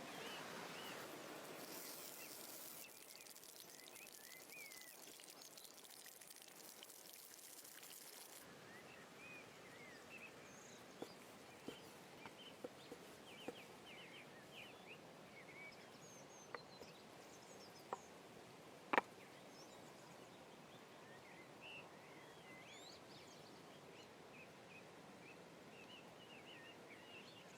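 Faint outdoor ambience of small birds chirping, with a high hiss for the first eight seconds that stops suddenly, and a few sharp clicks about halfway through.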